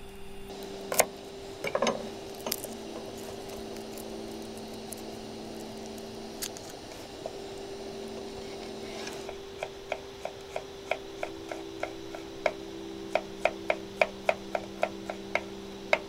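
Opinel No.8 stainless folding knife knocking on a wooden cutting board while mincing garlic: a quick, even run of sharp taps, about three a second, through the second half. A few louder knocks come earlier, over a steady low hum.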